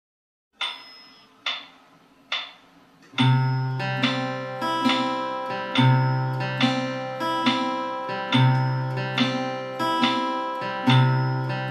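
Three evenly spaced clicks as a count-in, then a steel-string acoustic guitar fingerpicked in a broken-chord pattern in triple time. A low bass note opens each bar, with three beats to the bar.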